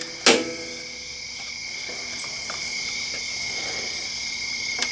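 Metal parts handled while a spacer and bolt are fitted into a motorcycle foot-peg bracket. There is a sharp metallic clink with a brief ring just after the start, then quiet handling and a light click near the end. A steady high-pitched background whine runs throughout.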